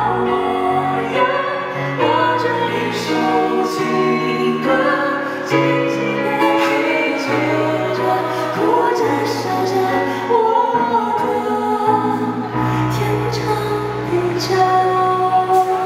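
A male singer with a high, light voice singing a slow Mandarin pop ballad, holding long notes over an instrumental accompaniment with a steady bass line.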